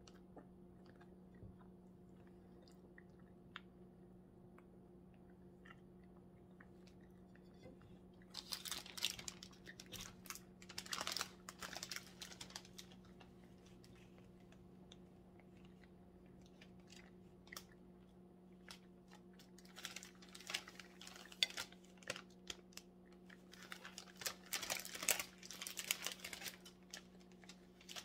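Faint chewing, then the cellophane wrapper of a flower bouquet crinkling in bursts as it is handled, starting about a third of the way in and coming again several times, over a steady low hum.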